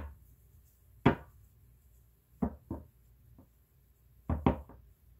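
A handful of short, sharp knocks and taps at uneven spacing, with the loudest at the start and about a second in and a close pair near the end, from a tarot deck being handled against the table.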